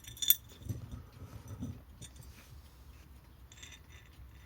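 Small metallic clicks and clinks of tiny clock parts and tools being handled on an alarm clock movement, sharpest in the first half-second, then fainter and sparser.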